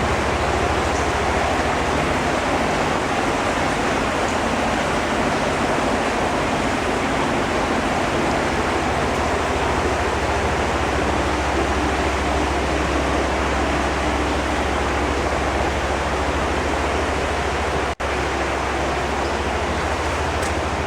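Steady rushing of flowing water, with a low hum beneath, broken once by a brief dropout near the end.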